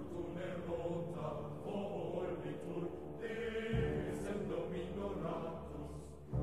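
Background music with choir-like chanting voices over held low notes; the low notes change a little under four seconds in.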